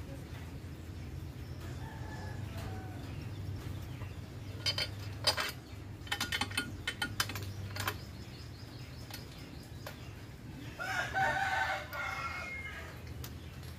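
A rooster crows once, about eleven seconds in, over a low steady hum. Earlier, from about five to eight seconds in, comes a run of sharp clicks and taps while hands work around the scooter's rear brake and radiator.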